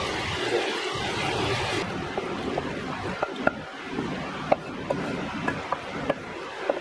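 Vegetables sizzling in a hot frying pan, then, after a sudden change about two seconds in, a wooden spatula scraping and tapping as the sautéed vegetables are tipped from the pan into a pressure cooker pot, with many short clinks.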